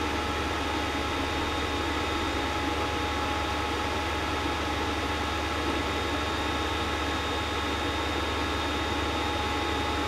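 Creality CR-10S Pro 3D printer running at the very end of a print: a steady whir of cooling fans with several fixed whining tones over a low hum, unchanging throughout.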